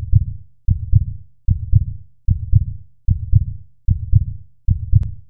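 Heartbeat in a steady lub-dub rhythm, about 75 beats a minute, with deep, muffled double thumps.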